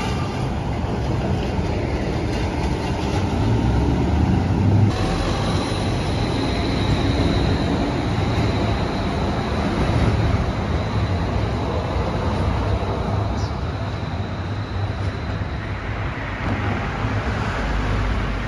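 Street traffic with a streetcar tram running past on its rails: a steady low rumble of wheels and cars, with a faint high whine from about five seconds in to about fifteen seconds in. The sound changes abruptly about five seconds in.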